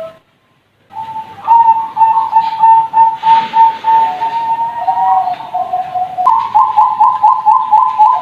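Young Bangkok-bred zebra doves (perkutut) cooing in quick series of clear, repeated notes, at times at two pitches at once. A brief gap near the start, after which the cooing starts up again.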